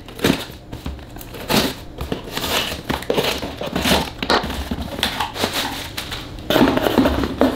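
A knife cutting through the packing tape of a cardboard shipping box, then the flaps being pulled open: an irregular run of scraping, tearing and crinkling noises, loudest near the end.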